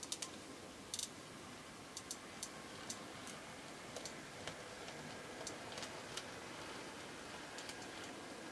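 N scale model diesel locomotive running along the track, a faint steady motor hum with irregular sharp clicks as its wheels cross rail joints and points.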